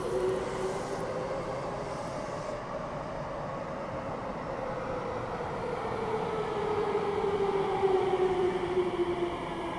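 Electric commuter train pulling into a station platform: wheels running on the rails with a motor whine that slowly falls in pitch as the train slows, growing a little louder near the end.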